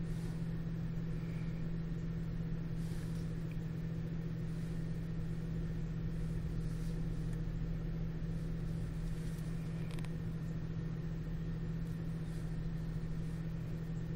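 Steady low hum with a constant low tone throughout, and a couple of faint clicks about three and ten seconds in.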